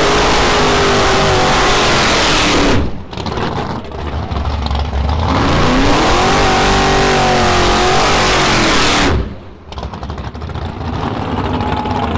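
Drag race car engine running at full throttle, cutting off sharply about three seconds in, building up again with rising pitch, and cutting off sharply again just after nine seconds in.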